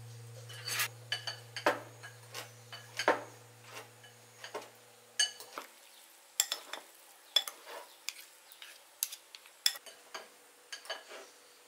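Metal spoon stirring raw sliced beef with onion and seasoning in a ceramic bowl: irregular clinks and scrapes of the spoon against the bowl. A low hum fades away about halfway through.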